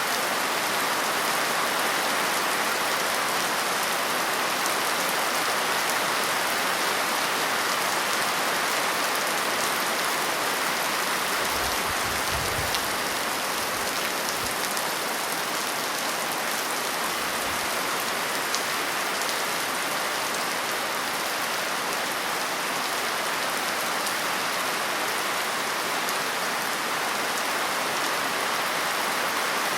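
Steady rain falling and pattering on a surface, an even, continuous hiss.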